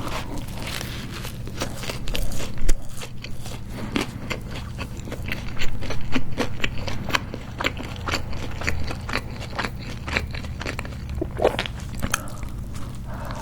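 Close-miked biting, crunching and chewing of a homemade hamburger on a toasted, crisp bun: a string of irregular crisp crunches and wet chewing clicks over a steady low hum.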